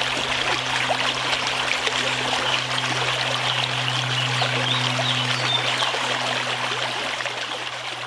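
Steady rush of a small waterfall pouring into a rock plunge pool, with a steady low hum underneath. The sound fades out near the end.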